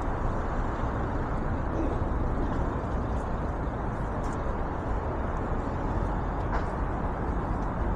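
Steady outdoor city ambience: a low, even rumble of distant traffic.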